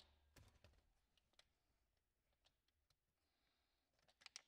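Near silence, broken by a few faint clicks and taps from tools and parts being handled, with a small cluster of clicks about four seconds in as a cordless drill/driver is set down.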